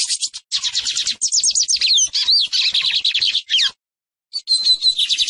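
Lined seedeater singing: fast runs of quick, high, repeated notes with a few sliding notes mixed in, breaking off about four seconds in and then starting again.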